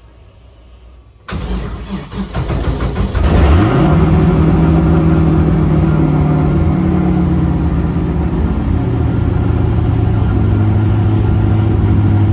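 LS V8 engine cranked over by the starter for about two seconds, catching with a quick rev flare and settling into a steady idle that drops slightly lower near the end. This is its first start with freshly rebuilt fuel injectors, fitted to cure a misfire.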